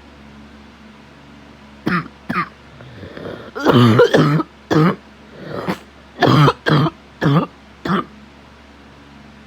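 A sick person's coughing fit: two short coughs about two seconds in, then a longer burst of coughing and several more coughs, with breaths drawn in between. The person coughing has asthma and smokes every day.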